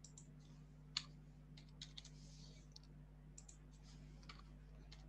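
Faint, scattered clicks of a computer keyboard and mouse as values are typed in, with a sharper click about a second in, over a low steady hum.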